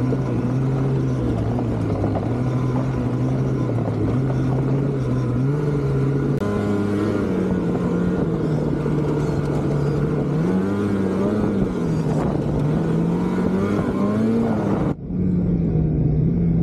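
Polaris 9R snowmobile's two-stroke twin engine running under throttle on a trail ride, its pitch rising and falling as the throttle is worked. There is a brief dropout near the end.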